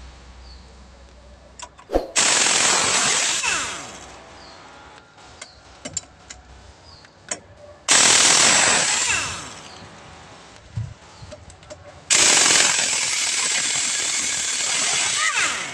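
Impact wrench hammering at a small truck's wheel lug nuts to loosen them. It runs in three separate bursts, the last one the longest, with small clicks in between.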